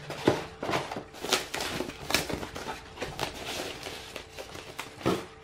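Foam packing inserts and an anti-static plastic bag being handled as a small black mini PC is unpacked from a cardboard box: plastic rustling and crinkling, with light knocks and scrapes about once a second.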